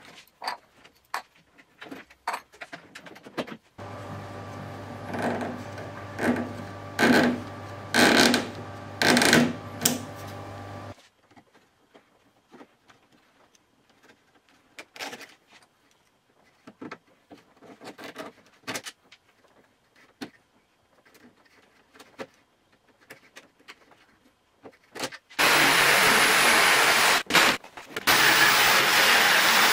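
Scattered small clicks and handling noises, with a steady hum and several louder noisy strokes for a few seconds. Then near the end, an electric jigsaw is loudly cutting a wooden board, pausing briefly once.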